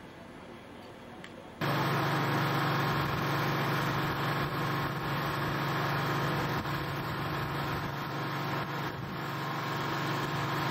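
Steady mechanical hum of an engine running at constant speed, holding several fixed tones, starting abruptly about a second and a half in.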